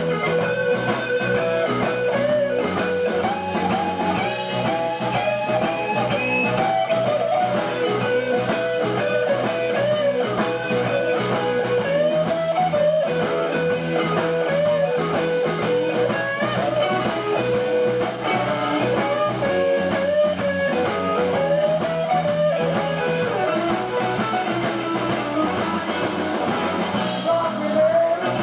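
Live blues band playing an instrumental passage: electric guitar and harmonica with bent, wavering lead notes over a steady drum beat.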